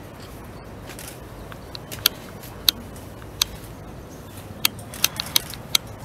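Camera shutters clicking, about eight sharp single clicks, some in quick succession, starting about two seconds in, over a low steady background rumble.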